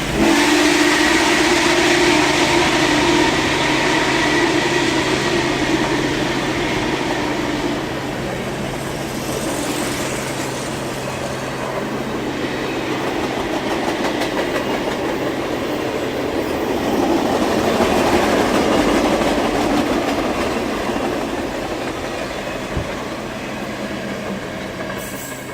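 Norfolk & Western Class J 611 steam excursion train rolling past, with a steady rumble of wheels clicking over the rail joints. It comes in suddenly, swells again about two-thirds of the way through and fades near the end.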